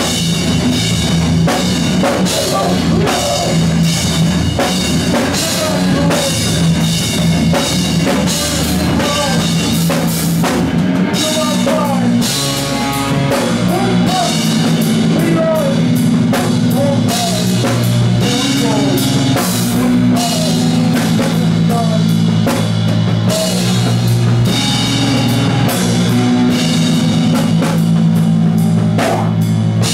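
Live rock band playing loudly, with a drum kit and guitars.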